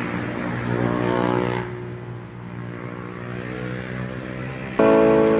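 A motor vehicle engine passing close by, swelling to its loudest about one and a half seconds in and then fading. Music starts suddenly near the end.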